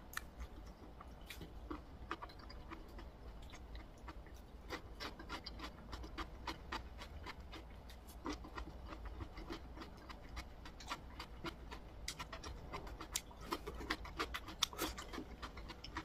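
Close-up eating sounds: chewing, with many small irregular clicks and taps that grow busier in the second half.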